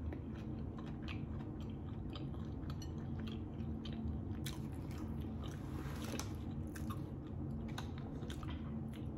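Close-up mouth sounds of chewing a chicken and cheese quesadilla with the mouth closed: a run of short, irregular wet clicks.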